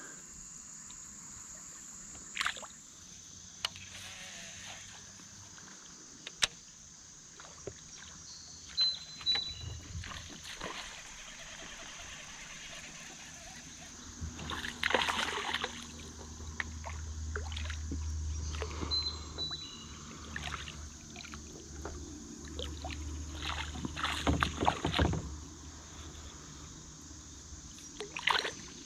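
Paddling and handling sounds from a plastic kayak on the water: scattered knocks and water noise, louder in stretches about halfway through and again near the end, over a steady high chirring of insects.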